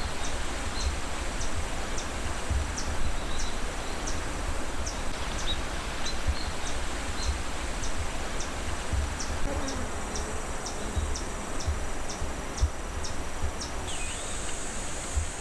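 Forest ambience: a short high chirp repeating about twice a second over a steady hiss, with low rumble underneath; a high buzzing trill joins near the end.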